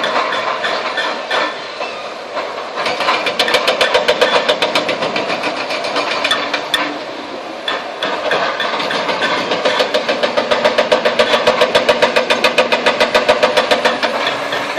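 Demolition excavator's hydraulic breaker hammering concrete in rapid, regular blows, about six a second, over the running diesel engine; the hammering stops briefly about halfway through, then resumes.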